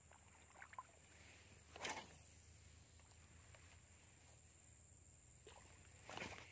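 Near silence: quiet outdoor ambience with a faint steady high whine, broken about two seconds in by one short whoosh, with rustling near the end.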